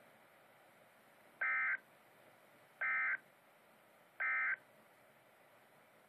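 Emergency Alert System end-of-message data bursts from NOAA Weather Radio through a weather radio's speaker: three short, identical bursts of a two-tone digital warble, about a second and a half apart, over a steady radio hiss. They mark the end of the broadcast tornado warning.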